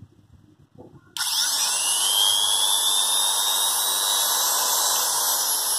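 A 200 W, 100 V electric straight die grinder is switched on about a second in. It spins up with a quickly rising whine and then runs free at a steady, high-pitched speed, with no load on it.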